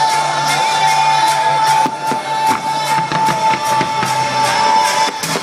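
Loud show music with a steady drum beat and a long held high note, with sharp firework bangs mixed in during the second half.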